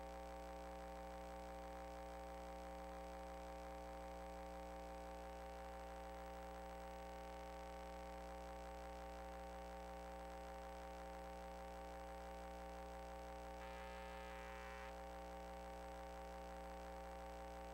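Faint, steady electrical hum made of several steady tones, with a thin high whine above it, as in the inspection recording's audio line. Faint brief buzzes rise over it twice.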